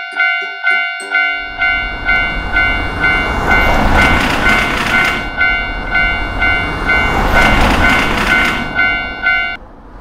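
Japanese railway crossing bell dinging steadily, about two strikes a second. A little over a second in, a passing train's rumble and clatter joins it. The bell stops shortly before the end, as the crossing clears.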